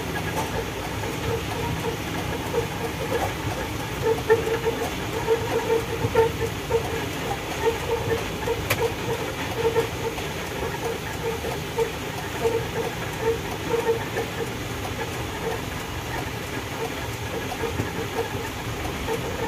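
Coal truck's diesel engine running at low speed, heard from inside the cab, with a steady rumble and a repeating rattle about two to three times a second.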